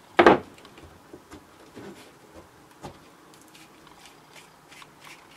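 Hands pressing and smoothing double-sided carpet tape around a LARP sword's plastic pipe core: one short, loud rub or scrape just after the start, then faint scattered rustles and light taps as the core is handled and turned.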